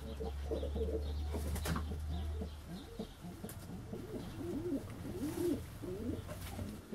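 Domestic pigeons cooing: a run of low coos, each rising and falling, one after another. A steady low hum sounds under the first couple of seconds and then stops.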